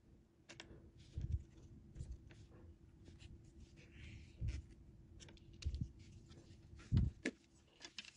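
Small close-up handling noises as fingers work thread and fishing line along a thin bamboo rod: scattered soft clicks and rustles with several low thumps, the strongest about seven seconds in, over a faint steady hum.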